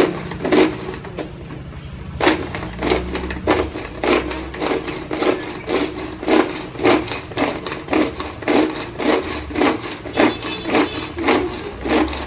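Hand-held pull-cord mini food chopper being worked by its string, chopping chillies and tomatoes for sambal. Each pull spins the blades with a short whirring rattle. The pulls come in quick succession, about two or three a second, after a brief pause near the start.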